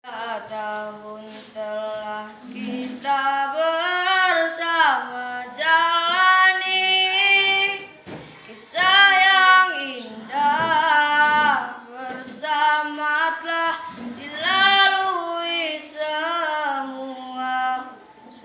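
A young schoolboy singing solo and unaccompanied in a high voice, in phrases of long held notes with vibrato.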